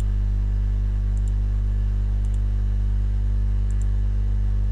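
Steady electrical hum on the recording, with three quick double clicks of a computer mouse about a second in, a little after two seconds, and near four seconds.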